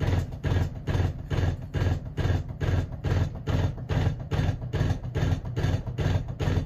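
Emerson friction-drive ceiling fan running with a loud, rhythmic thudding in rapid, even beats, strong enough to vibrate the ceiling. The fan is out of balance and wobbles.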